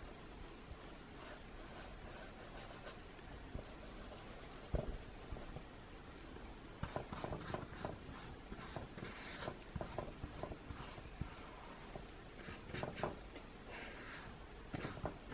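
Paintbrush stroking and dabbing thick white acrylic paint onto a stretched canvas: faint scratchy brush strokes that come thicker and faster from about halfway, with one sharper knock a little before that.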